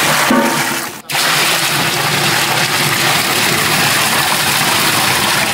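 Water pouring from a plastic bucket into a large aluminium cooking pot of mutton curry, a steady gushing splash into the liquid. It breaks off briefly about a second in, then pours on.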